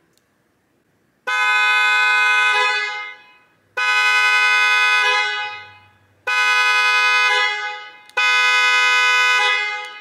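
A pair of aftermarket horns on a 2022 Honda Civic sounding through the car's alarm: four long, loud blasts, the first about a second in and then one every two seconds or so. Each blast echoes and dies away in a large empty building.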